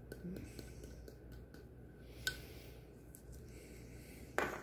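Faint ticks and rattles as ground black pepper is shaken from a spice shaker into a small stainless steel bowl. There is one sharp click a little after two seconds and a short, louder rustle near the end as the shaker is handled.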